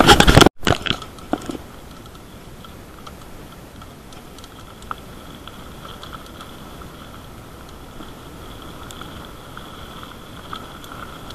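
Mountain-bike ride on a gravel track heard through a handlebar-mounted camera: a loud crackling rattle that cuts off abruptly about half a second in, a few clicks, then only a faint steady whine with scattered light ticks.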